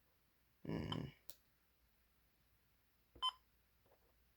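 First Alert WX167 weather radio beeping as its buttons are pressed during menu setup: a longer tone with a dull bump about a second in, a click, then a short sharp key beep near three seconds in.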